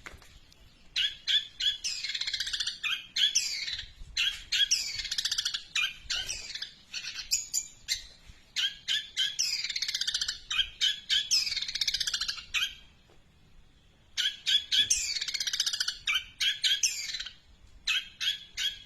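Long-tailed shrike (cendet) singing a long, fast run of mimicked Eurasian tree sparrow chirps, mixed with rapid clicks and downward-sweeping whistles. It breaks off for about a second and a half past the middle, then starts again.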